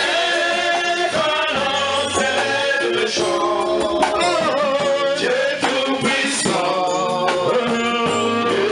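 Church worship song: a man singing into a microphone over amplified instrumental accompaniment with light percussion.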